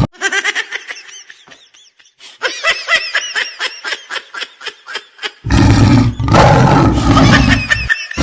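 Rapid pulsing laughter for a few seconds, then a loud tiger roar about five and a half seconds in that lasts over two seconds.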